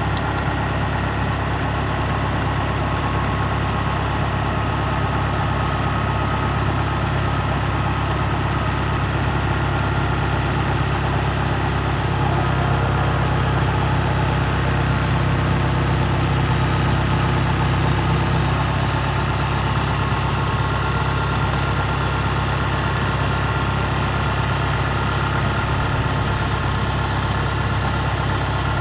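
Kubota DC70 combine harvester's diesel engine running steadily, swelling a little louder for several seconds midway.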